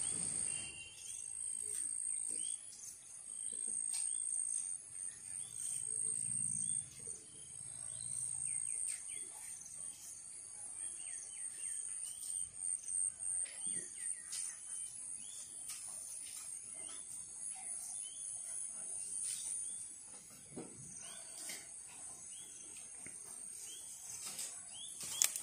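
Insects chirring steadily in a high, shrill drone, with scattered short bird chirps over it.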